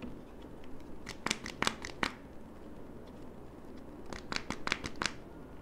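Kinder Joy eggs handled in their plastic-foil wrappers, the wrappers crinkling in two short bursts of sharp crackles, about a second in and again about four seconds in.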